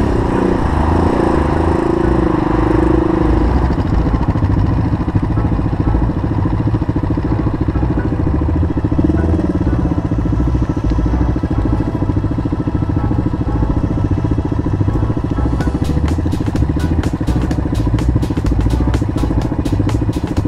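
Suzuki DR dual-sport motorcycle single-cylinder engine running steadily at low trail speed. A quick, even ticking joins in over the last few seconds.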